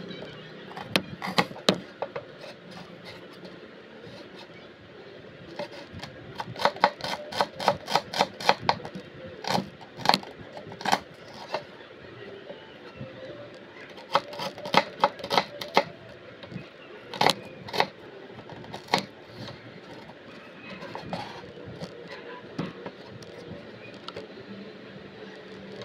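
A miniature kitchen knife chopping a small red onion on a little cutting board: sharp taps of the blade against the board in quick runs of strokes, about four a second at times, with pauses between.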